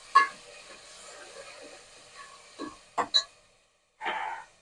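A steel ladle stirring chopped tomatoes frying in oil in an aluminium pot, knocking against the pot several times over a faint sizzle; the stirring stops after about three seconds, and a brief rustle follows near the end.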